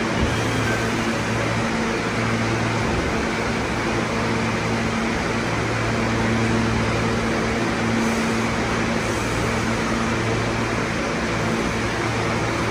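R68 subway car standing at the platform, its air-conditioning and onboard equipment running with a steady hum and a low drone.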